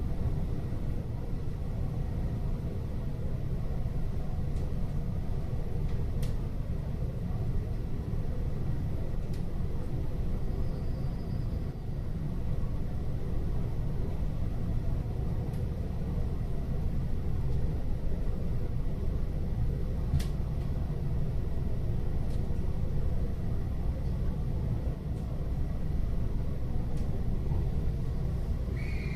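Steady low rumble inside a Keihin-Tohoku Line commuter train car, with a faint high steady tone above it and a few light clicks.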